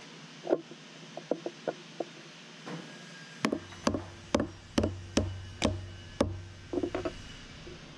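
A yellow-green mallet tapping a steel workpiece down in a milling-machine vise to seat it. A few light taps, then about seven sharp knocks at roughly two a second from about three and a half seconds in, then a couple of lighter taps near the end.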